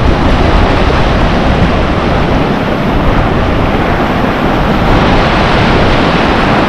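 Ocean surf washing in over a beach, a steady rushing noise, with wind buffeting the microphone.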